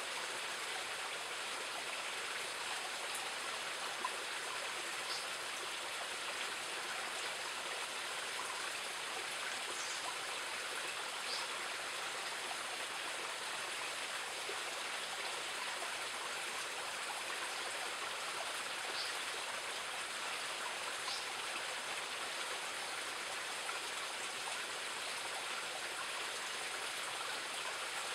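Steady rushing of a shallow rocky forest stream, with a few faint, short, high ticks now and then.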